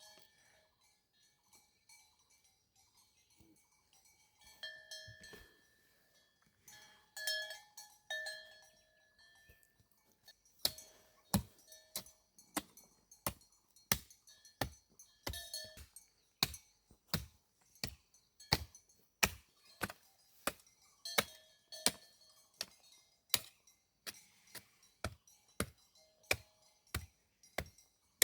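Steady chopping, sharp blade strokes at about one and a half a second, starting about ten seconds in. Before that, a few faint ringing, bell-like clanks.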